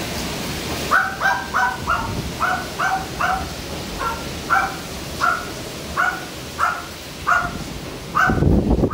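Heavy rain pouring steadily while a dog barks over and over, about two barks a second, from about a second in. A brief loud low rumble near the end.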